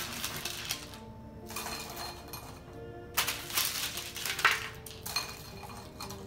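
Roasted pumpkin seeds rustling on parchment paper and clinking into a glass bowl as they are scooped up by hand, in several handfuls, with a few sharper clicks, over background music.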